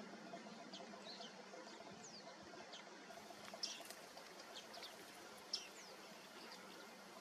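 Bearded tits (bearded reedlings) calling in the reeds: faint, short, high-pitched call notes, mostly falling in pitch, scattered irregularly, with the clearest ones about three and a half and five and a half seconds in.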